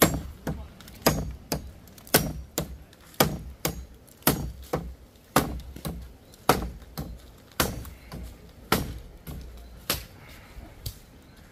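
Repeated striking blows of a hand tool, a heavy blow about once a second with a lighter one in between, stopping about eleven seconds in.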